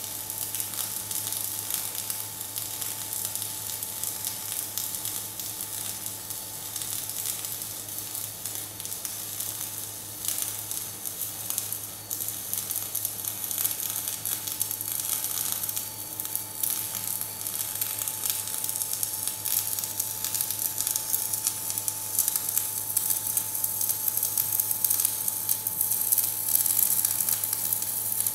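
MIG welding arc crackling steadily as steel plates are welded onto the side of a toe-tip bucket, getting louder in the second half. A steady hum runs underneath.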